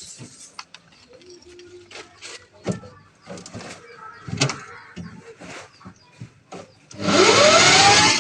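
Scattered light knocks and clicks, then about seven seconds in a loud rushing noise starts, with a rising whine in it.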